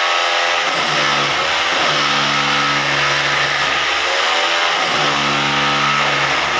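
Hammer drill motor running continuously. Its whine holds steady for a second or two, then sags and wavers in pitch as the tool bears into the cut, and this repeats about every three seconds.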